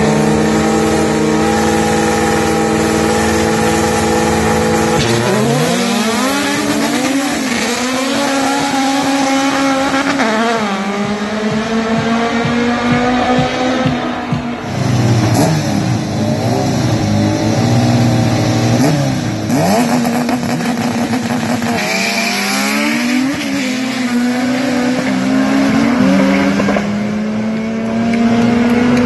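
A Honda Civic drag car's engine is held at steady high revs on the start line. About five seconds in it launches and accelerates hard, the pitch climbing and falling back at each gear change. More hard full-throttle accelerations through the gears follow later.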